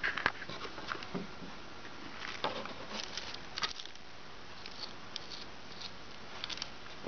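Scattered light taps, clicks and rustles at irregular moments as a plastic doll and small plastic toys are handled on a tabletop, over a steady faint hiss.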